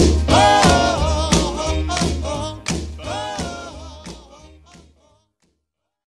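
Background song with a sung melody over a steady bass line, fading out and ending about five seconds in.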